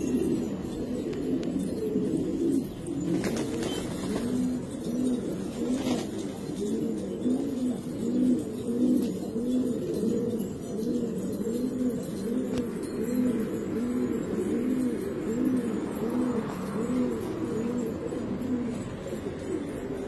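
Several domestic pigeons cooing at once, their low, rounded coos overlapping and repeating without a break.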